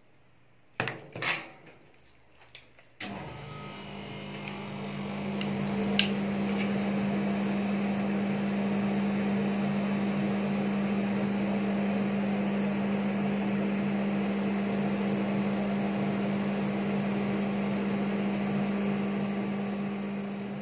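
A few clicks and knocks, then about three seconds in a rolled-ice-cream cold plate's refrigeration unit starts up: a steady low hum with fan noise that builds over a few seconds and then holds, with one more sharp click soon after.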